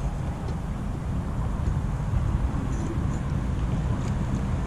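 Wind buffeting the camera's microphone: a steady, uneven low rumble with no other clear sound above it.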